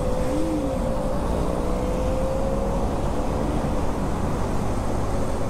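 Motorcycle engine running at a steady cruising speed on the highway, a constant drone under heavy wind rumble on the rider's microphone.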